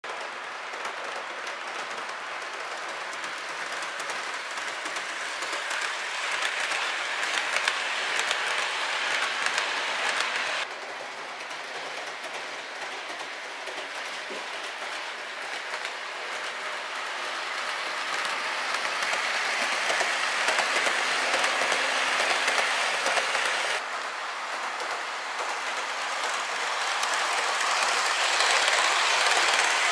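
HO-scale model electric train (KS Model 80 series four-car set with an Endo KuMoYuNi 81) running on the layout's metal track: a steady hissing rumble of wheels on rail. It drops suddenly a third of the way in and again near the end, and grows louder as the train passes close at the end.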